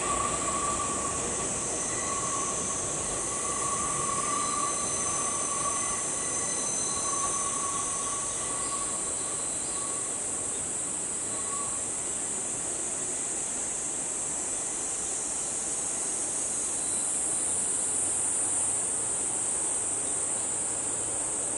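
Nankai 2000-series electric train pulling away round a curve, its wheels squealing in a thin steady tone that fades out about halfway through. A steady high insect buzz carries on underneath.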